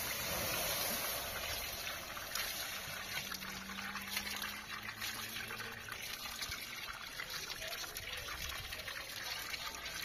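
Water trickling and splashing onto a hot iron bread griddle as it is wetted and wiped down by hand, with a hiss of steam at first.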